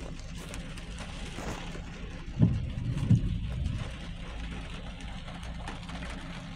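Cars passing on a rain-wet road over a steady low engine hum, with two dull thumps a little over half a second apart about two and a half seconds in.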